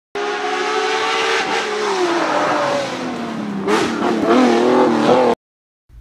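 Car engine revving, its pitch sliding down and then climbing and wavering again, cutting off abruptly about five seconds in.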